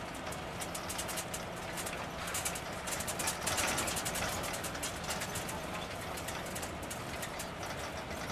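Vehicle driving, with a steady low engine hum and a fast, irregular rattle over it; it swells louder briefly about three and a half seconds in.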